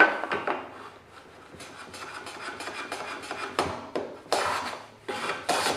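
Hand plane on a shooting board shaving the end grain of a wooden board in short scraping strokes, the last two the loudest, near the end. These are light final passes, taking the end down just to a knife line to square it.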